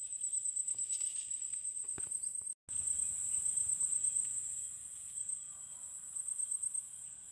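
Insects chirping in a steady, high, finely pulsing trill, with the sound cutting out completely for a moment about two and a half seconds in.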